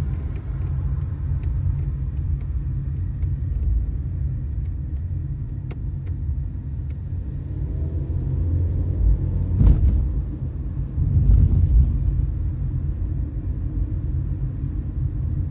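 Steady low rumble of a car driving on a city road, heard from inside the car: engine and tyre noise. There is a short, louder bump about ten seconds in.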